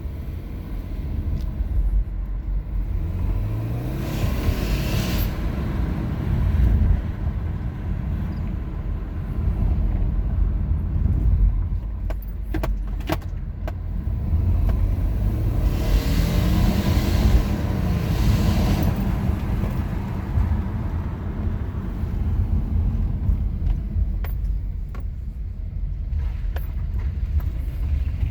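2018 Subaru Forester 2.0XT's turbocharged flat-four pulling through the CVT over a steady low rumble. Twice, about four seconds in and again around sixteen seconds in, the engine note rises and a rushing hiss swells over it. This is the acceleration at about 3000 rpm that brings on the odd noise the owner is trying to reproduce.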